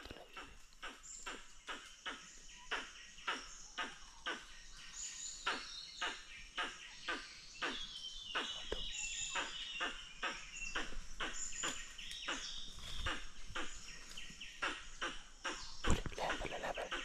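Forest dawn chorus: birds whistling and trilling high, with insects calling. Under it runs an even series of short clicks or ticks, about two or three a second.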